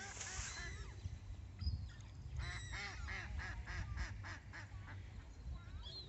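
Waterbirds calling in quick runs of repeated harsh notes, about four a second: one run fades out about a second in and a longer one comes midway.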